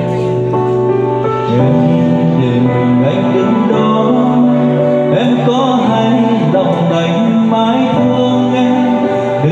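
A man singing into a microphone over instrumental backing music, amplified through a sound system, with long held notes.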